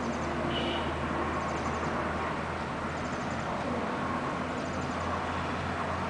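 Steady outdoor background rumble with a constant low hum, like distant traffic. A faint, short high chirp repeats about every second and a half, with a brief higher call just after the start.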